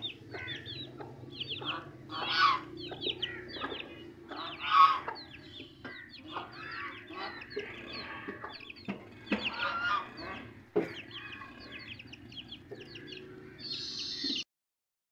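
Chickens in a farmyard: young chicks peeping over and over in short high chirps, with a few louder, fuller calls from grown birds. The sound stops abruptly near the end.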